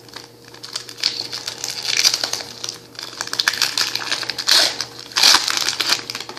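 Trading card pack wrapper being torn open and crinkled by hand, a dense crackle with a few louder crinkles near the end.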